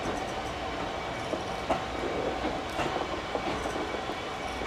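Train rolling past with a steady rumble, its wheels clicking sharply over rail joints several times.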